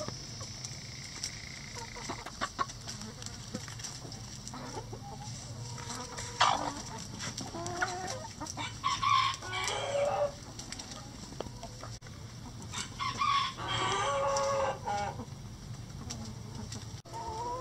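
A flock of chickens clucking, with a sharp squawk about a third of the way in and then two longer, louder drawn-out calls a few seconds apart.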